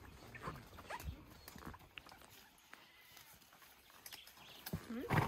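Horses walking on a dirt trail, hooves clopping in scattered soft knocks, with short pitched calls and a louder one near the end.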